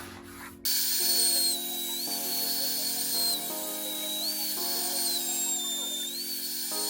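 An electric power tool starts about a second in with a high whine and a harsh hiss, as of a tool working metal. Its pitch sags and recovers every second or two as it is loaded. Background music plays along.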